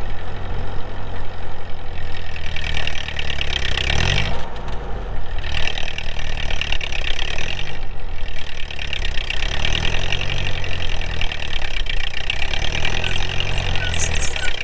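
Tractor engine running and driving a belt-driven jaw crusher that has not been run in a while, the engine speed rising and falling several times as it turns the crusher over.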